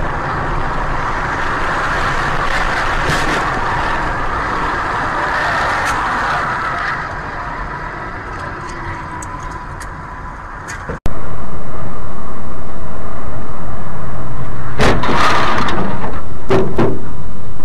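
Steady vehicle road noise from a dashcam on a highway, with a few sharp knocks. About eleven seconds in it cuts to a much louder, distorted rushing noise from a camera on a moving motorcycle, with two louder bursts near the end.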